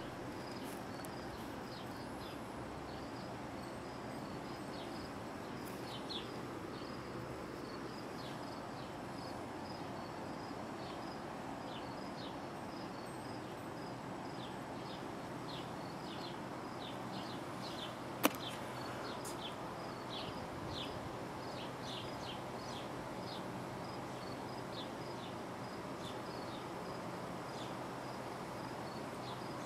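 Garden ambience: a steady low hiss with insects chirping in short, quick, irregular calls throughout. One sharp click a little past the middle.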